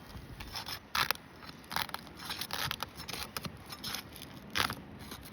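Asphalt roof shingles being worked loose by hand, with irregular scraping and crackling and two louder rasping bursts, about a second in and near the end.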